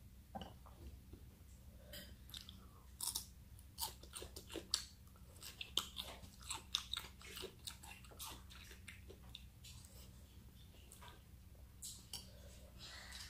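Close-up chewing of chewy cooked squid: a run of wet mouth clicks and smacks, thickest from about three to seven seconds in and thinning out toward the end, over a low steady hum.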